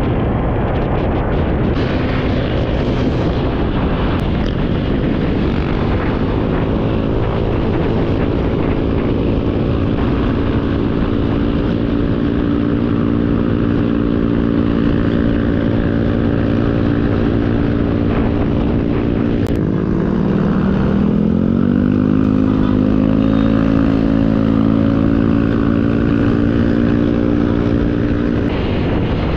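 Motorcycle engine running at a steady cruising speed, with wind rush over it. About two-thirds of the way in the engine note drops and then climbs back up, as at a gear change.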